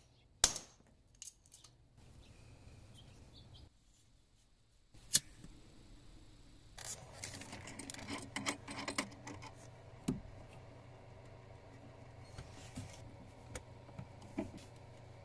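Crimping tool and cable lug being worked onto heavy 4-gauge battery cable: scattered sharp metallic clicks and clinks with handling rustle between them, broken by a couple of abrupt cuts to quiet.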